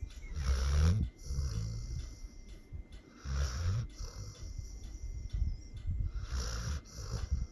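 Pit bull snoring in its sleep: low, rattling snores repeating every second or so, the three loudest about three seconds apart.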